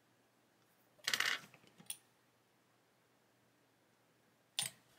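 Small hobby tools handled on a cutting mat: a short clatter about a second in, a lighter tick just before two seconds, and a sharp click near the end, as the steel tweezers are put down and the plastic bottle of liquid cement is picked up.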